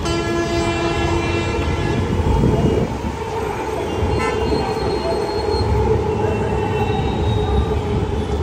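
An elevated electric metro train running past over busy road traffic, a steady rumble throughout. A horn sounds for about two seconds at the start.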